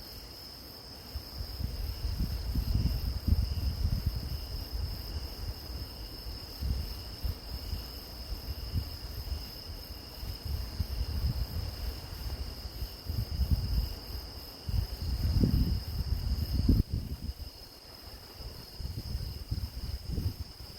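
Field crickets or other grass insects chirring steadily in several high, even tones. Over them, irregular low rumbling gusts of wind buffet the microphone.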